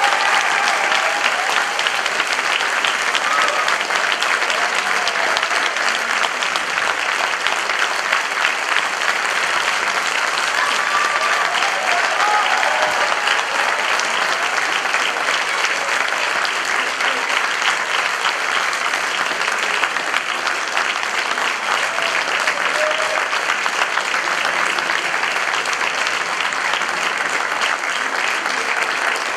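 Audience applauding steadily for a curtain call, with a few voices calling out over the clapping.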